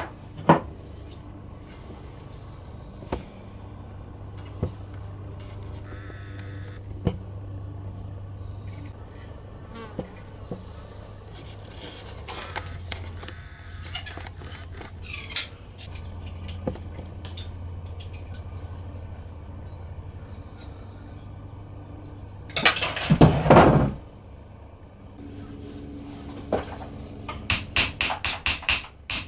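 Hand tin snips cutting thin copper sheet, with scattered clicks over a steady low hum and a brief loud clatter a little past two-thirds of the way through. Near the end, a quick series of ball-peen hammer taps on the copper strip against a steel bench block, about four a second.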